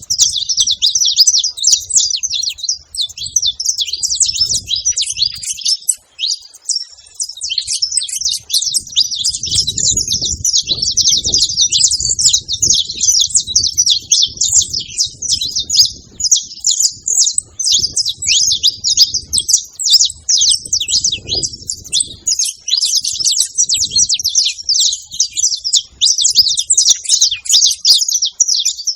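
Saffron finches chirping in a dense, almost unbroken stream of rapid high notes, several birds at once.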